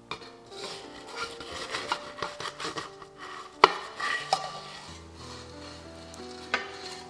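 Spatula scraping and clinking against a wok as a fried oyster omelette is slid out onto a porcelain plate, with a sharp clack a little past halfway and another near the end. Soft background music plays underneath.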